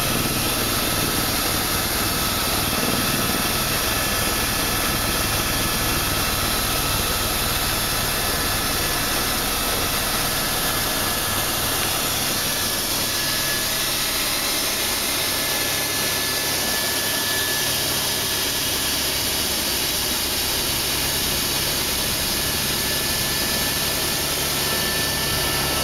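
Helicopter engine and rotor heard steadily from inside the cabin in flight, with a faint high whine over the noise.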